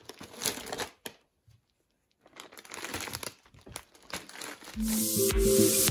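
Crinkling of holographic foil wrapping paper as wrapped presents are handled and set down, in two stretches with a gap between. Background music with a steady beat comes in near the end.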